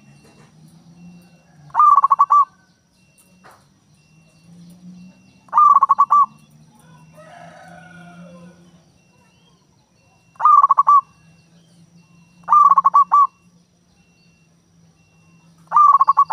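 Zebra dove (perkutut) cooing: a short call of quick clipped notes, repeated five times at gaps of two to five seconds.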